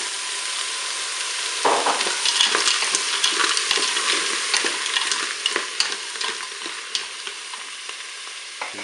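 Frozen shelled mussels sizzling in hot olive oil in a Cookeo multicooker's bowl on its browning setting, with a spoon stirring and scraping through them against the bowl. The sizzle fades gradually toward the end.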